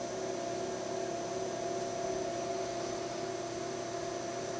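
Lathe spindle and power cross feed running steadily through a facing cut: an even mechanical hum with a couple of held whining tones.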